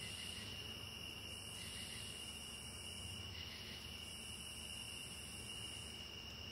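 Faint insect chorus: a steady high-pitched trill with a higher buzz that starts and stops every second or two, over a low steady hum.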